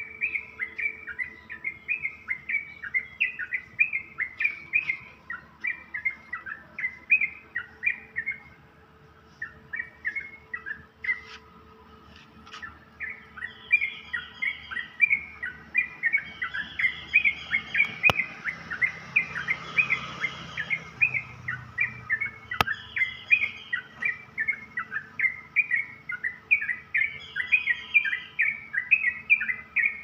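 Sooty-headed bulbuls (trucukan) singing a rapid run of short, repeated chirping notes, about two or three a second. The singing thins out briefly about ten seconds in, and longer, higher whistled notes join from about halfway.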